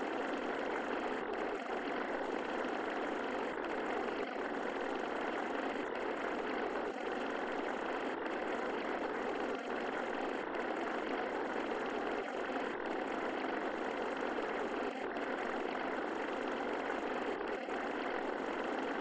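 A steady, even rushing noise with no tone, beat or voice in it.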